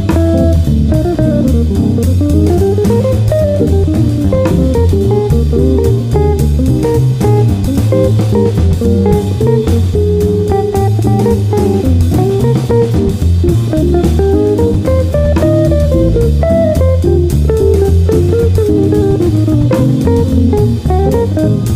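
Instrumental background music with a steady beat and a strong bass line.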